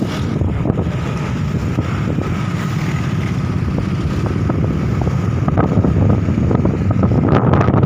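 Wind buffeting the microphone on a moving motorcycle, over the steady running of motor scooter engines. A faint steady whine sits above the rumble.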